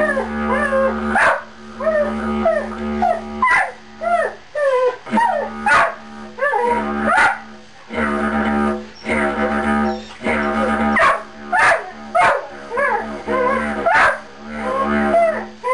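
Border collie howling along to a didgeridoo's steady low drone, its wavering howls rising and falling in pitch over the drone. The drone breaks off briefly every second or two.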